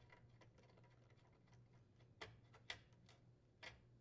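Faint scattered clicks and taps of plastic appliance panels and a screwdriver being handled, with three slightly louder sharp clicks in the second half.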